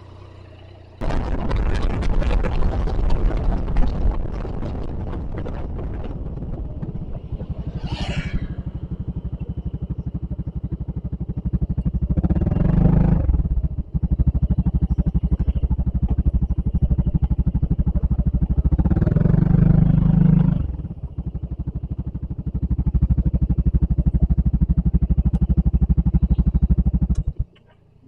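Maxi-scooter engine running under way, heard from an onboard camera with wind noise. The engine pulls harder twice, and the sound cuts off suddenly near the end.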